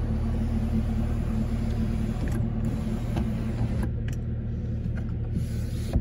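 The 2019 Camaro ZL1's supercharged 6.2 L V8 idling steadily, heard from inside the cabin.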